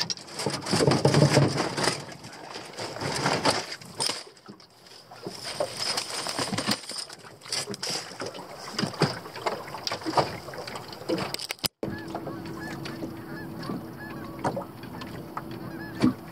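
Irregular clicks and knocks of a freshly caught small walleye and fishing tackle being handled in a boat. About twelve seconds in, the sound cuts to a steady low hum with faint short repeated sounds above it.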